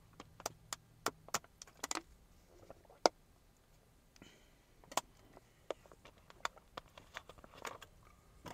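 Drinking from a thin plastic water bottle: scattered sharp clicks and crackles of the plastic as it is gripped and tipped, mixed with swallowing, with a short soft breath about four seconds in.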